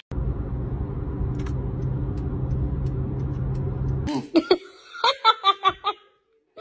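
Steady low road rumble inside a moving car's cabin, cut off abruptly about four seconds in. It is followed by a quick series of short, sharp pitched sounds, about five a second.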